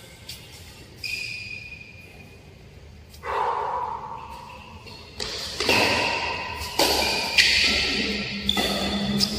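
Badminton doubles rally: sharp, irregular knocks of rackets hitting the shuttlecock and shoes squeaking on the court, echoing in a large hall. A few light hits come first, and from about three seconds in the hits come louder and faster.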